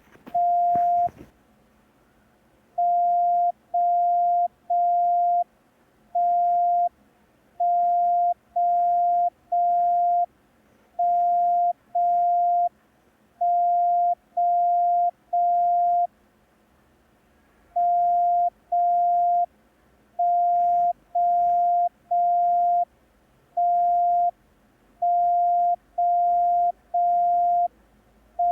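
Morse code practice tone, a steady single-pitched beep keyed only in long dashes: the letters T, O, T, O, M, O, M, O, T, O sent slowly, with a clear pause between letters.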